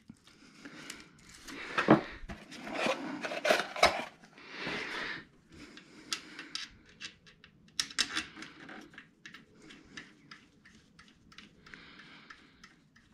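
Metal tools and parts clinking and knocking in irregular handling, with scattered sharp clicks and a few short scraping rustles.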